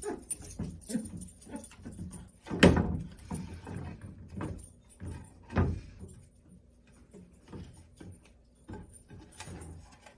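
A wooden plank knocking and scraping against the frame of a sliding patio door and the wooden deck as a dog tries to carry it through in its mouth. The knocks come irregularly; the loudest is about two and a half seconds in, and another strong one comes a few seconds later.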